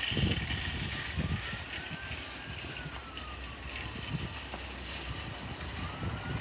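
Steady distant rumble of a JetBlue Airbus A320-232 airliner with IAE V2500 turbofans passing high overhead, heard as an even outdoor roar. A faint tone slides up and back down twice.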